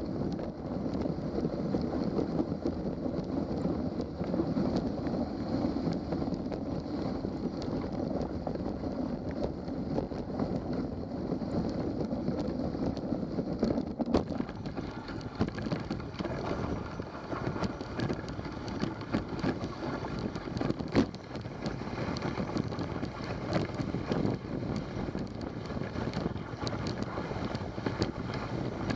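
Dog sled travelling along a snow trail: steady rushing noise of the runners sliding over snow, with wind on the microphone and a few scattered knocks, the loudest about two-thirds of the way through.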